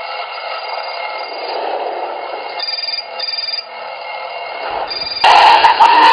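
An alarm going off with a steady electronic ringing tone, broken by a few short on-off beeps in the middle. About five seconds in, a much louder musical alarm sound cuts in suddenly.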